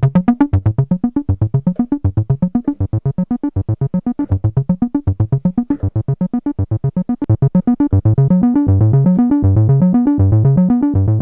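Donner B1 analog bass synthesizer playing a fast, repeating rising bass pattern of short, plucky notes, with accent on and no saturation. About eight seconds in the notes lengthen and run into each other as the gate length is turned up.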